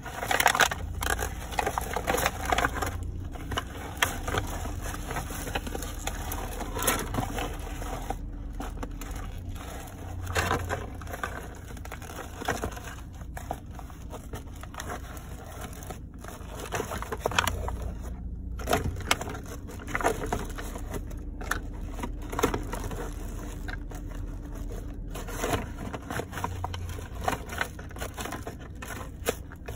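Plastic wrapping and cardboard of a figure box crackling and crunching under sneakers as they stamp on it and grind it, in irregular bursts of crackles.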